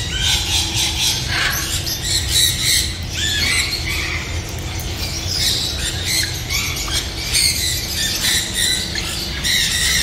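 Many caged birds, parrots among them, squawking and chirping over each other, one call on top of the next.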